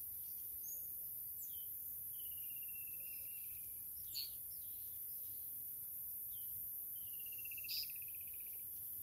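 Outdoor ambience with wild birds calling: scattered short whistles and chirps, two buzzy trills that slide slightly downward, each about a second and a half long, and two sharper, louder chirps about four seconds in and near the end, over a steady high hiss.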